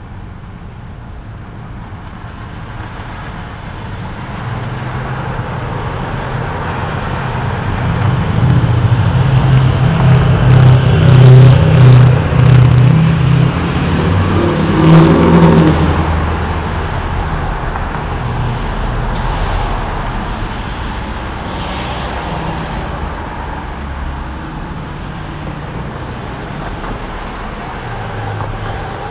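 A motor vehicle's engine approaching and passing: the sound builds, is loudest for several seconds around the middle, then fades off.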